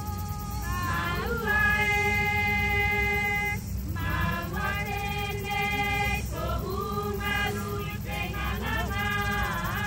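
Voices singing a Polynesian song, a long held note in the first half, then shorter phrases that glide up and down. A steady low rumble runs underneath.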